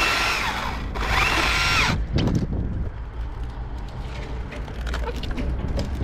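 Husqvarna T535i XP battery top-handle chainsaw cutting wood in two short bursts, each a whine that rises quickly to a steady pitch and falls away, the last ending about two seconds in. A few light clicks and knocks follow.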